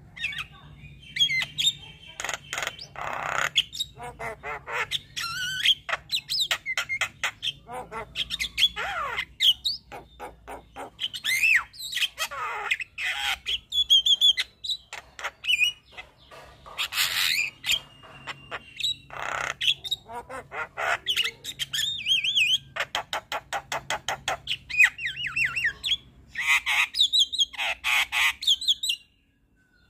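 Javan myna (jalak kebo) singing an unbroken, varied song: a fast jumble of chattering, rising and falling whistles, rapid trills and harsh squawks. It stops abruptly near the end.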